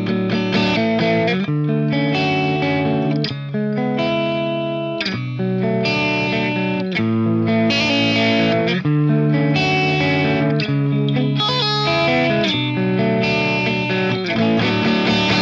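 Knaggs Kenai electric guitar with Seymour Duncan Seth Lover humbucker pickups, played through an amp. It plays a continuous run of chords and notes, changing every half second to a second.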